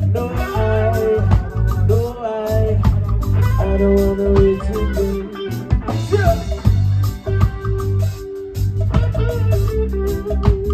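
Live reggae band playing, with electric bass and drum kit holding a steady groove under electric guitar and melodic lines, and some singing.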